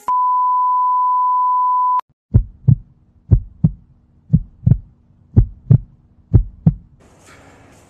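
A steady beep tone held for about two seconds, cut off by a click, then a heartbeat sound effect: five double thumps, about one a second.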